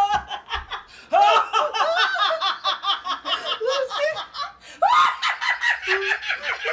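A woman laughing hard, in quick high-pitched repeated pulses, with a brief break about a second in.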